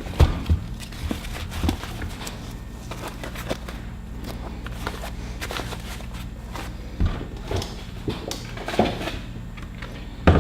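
Scattered knocks, clicks and rustles of tools and packaging being handled and set down, over a steady low electrical hum.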